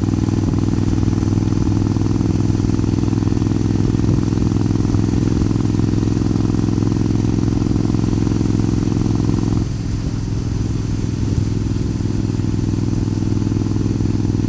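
A 2003 Suzuki Intruder 1400's V-twin engine running through Vance & Hines Classic II exhaust pipes at a steady cruise. About ten seconds in, the exhaust note softens abruptly and stays quieter.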